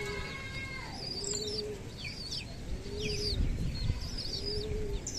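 Domestic pigeons cooing, a short low coo repeated about four times, with high, thin cheeps repeating over it.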